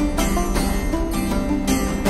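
Background music: sustained instrumental notes over a steady beat.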